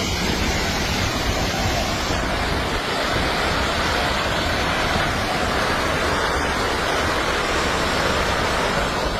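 Landslide flowing downhill: a steady, intense rushing roar of mud and rocks, like a raging river.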